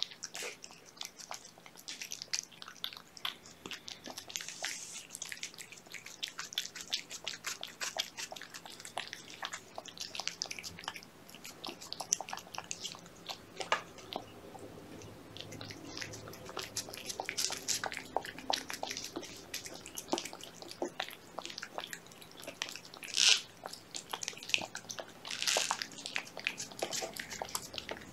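Adult cat eating wet cat food off a plate close up: a steady run of small wet chewing and licking clicks, with two louder smacks near the end.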